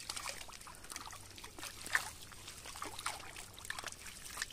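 Mullet trapped in a net flapping and splashing in shallow water, with water trickling, as the net is gathered in. The splashes come irregularly, with one sharper splash about two seconds in.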